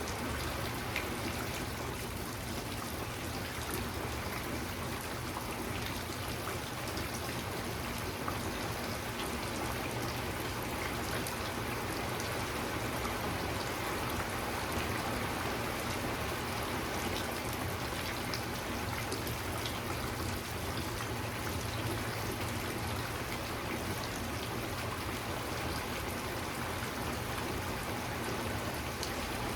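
Steady rain falling, an even hiss with many small drops pattering.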